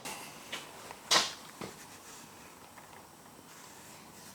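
A cloth rag wiping out a motorcycle alternator part, a few short scuffing rubs and light knocks, the loudest about a second in, then only faint room tone.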